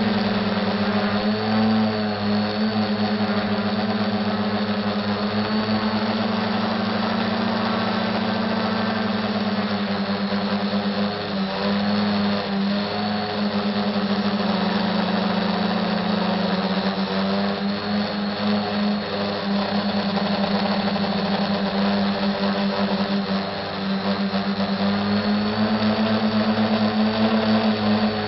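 SK450 dead-cat quadcopter's electric motors and propellers buzzing steadily in flight. The pitch sags slightly for a few seconds in the later part, then rises again.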